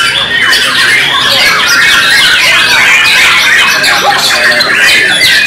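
White-rumped shamas (murai batu) singing, many birds at once in a dense, overlapping stream of whistles and chirps, with a fast run of repeated falling notes near the end.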